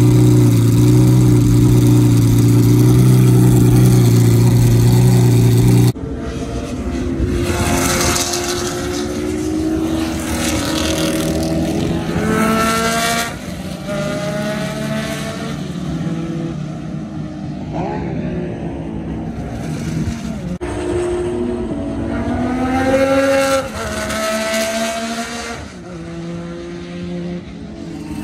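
McLaren F1 GTR's V12 idling steadily and loudly. About six seconds in, it gives way to more distant sports car engines accelerating hard, their notes climbing through several gear changes, twice.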